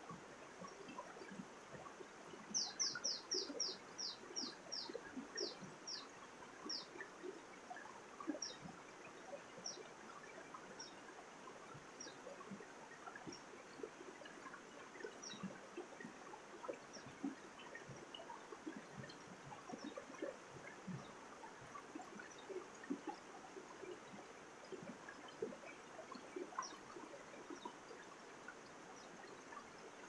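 Mountain stream running over rocks with a steady babble. About two seconds in, a bird calls a run of quick high notes, each falling in pitch, that slows and thins out, with odd single notes after.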